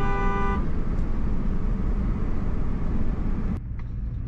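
A vehicle driving, with a steady rumble of engine and road noise. A held tone stops about half a second in.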